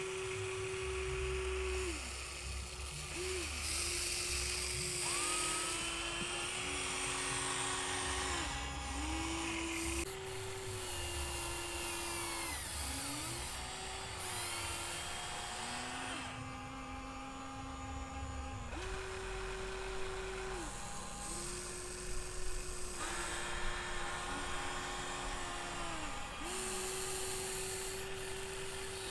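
Electric motors of a Huina 1594 RC excavator whining as its boom, arm, bucket and turntable are worked, each whine starting and stopping every second or two and jumping between a few pitches.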